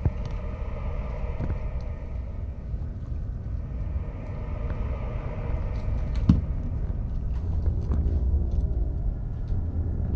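Handling noise from a handheld camcorder being carried: a steady low rumble with a few scattered knocks and clicks, the sharpest about six seconds in.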